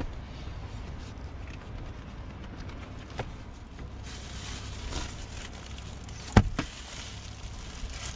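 Plastic bags crinkling and rustling as bagged catch is handled, starting about four seconds in, with a few light clicks and one sharp knock on the table a little after six seconds, over a steady low rumble.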